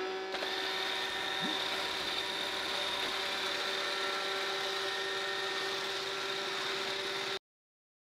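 iRobot Roomba 650 robot vacuum running a cleaning cycle just after starting: a steady whir of its vacuum motor and brushes with a steady hum and a high whine. The sound cuts off abruptly about seven seconds in.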